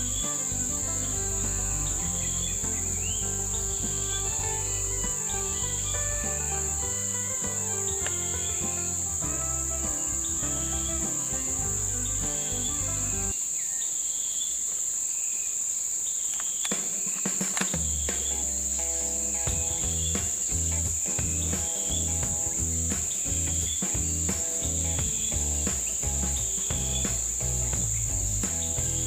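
Steady high-pitched drone of an insect chorus, heard alongside background music with a bass line. The music drops out for a few seconds in the middle while the insects carry on.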